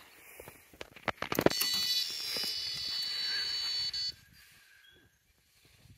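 Electronic carp bite alarm sounding one continuous high tone for about two and a half seconds, a "screamer" of a run as a carp takes line, then cutting off suddenly. A few short clicks come just before it.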